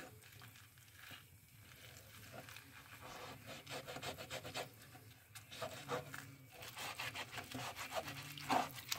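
Fingers scrubbing soap along the ridged grooves of a wet cast iron grill pan: faint, quick rubbing strokes that grow busier and louder from about three seconds in, working burger grease out of the grooves.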